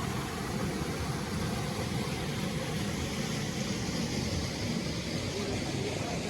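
Steady rushing of a flowing stream near the top of a waterfall, an even hiss with a heavier low rumble.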